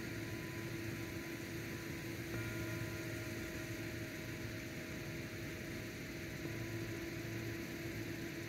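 Steady electrical hum over a hiss, with faint thin steady tones that switch on and off abruptly.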